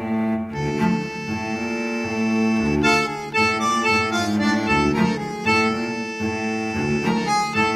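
Instrumental background music, a melody over sustained chords.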